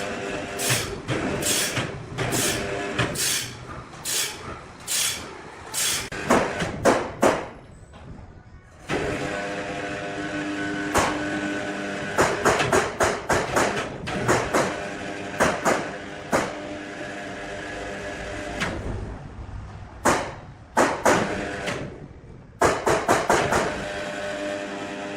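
Sawmill machinery: a steady machine drone with repeated sharp knocks and clanks. The knocks come about once a second at first, then in clusters over the running machine.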